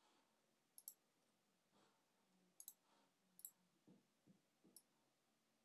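Faint computer mouse clicks, several in quick double pairs, spaced about a second apart, as text on a web page is selected. A few soft low knocks fall in between.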